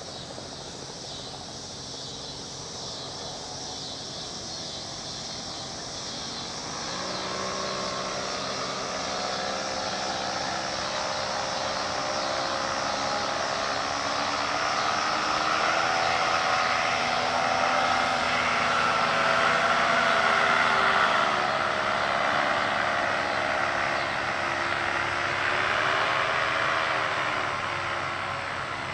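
Paramotor's backpack engine and propeller droning steadily as it flies past low overhead. It grows louder from about a quarter of the way in, peaks a little past the middle, then fades, with its pitch wavering and shifting as it passes.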